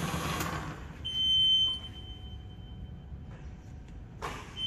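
A high electronic beep, a single steady tone, sounds twice: loud for about half a second about a second in, then again near the end. A broad rushing noise fades out in the first second, over a low steady hum.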